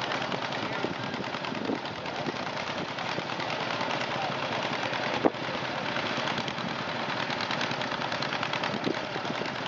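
Two-cylinder John Deere tractor engine popping rapidly and steadily under load as it pulls a weight-transfer sled. A single sharp click about five seconds in.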